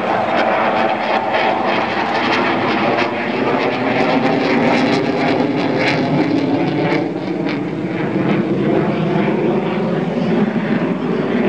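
Jet noise from a Saab JAS-39 Gripen fighter's single afterburning turbofan (Volvo RM12) as it flies its display overhead: a loud, continuous rushing sound with a crackly edge, dropping somewhat in pitch and briefly in level about seven seconds in.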